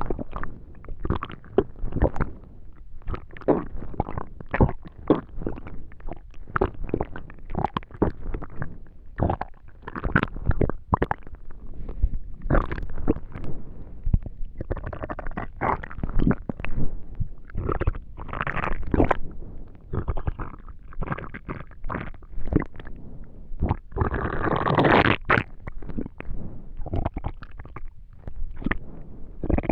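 Human stomach and intestines gurgling during digestion: a steady stream of short gurgles and pops, broken by a few longer rumbles, the longest near the end.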